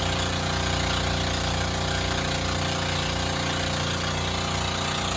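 Engine of a bangka outrigger boat under way, running steadily at an even, unchanging speed.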